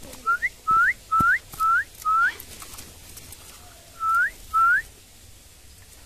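Short clear whistled notes, each sliding upward in pitch: five in quick succession, then two more a couple of seconds later.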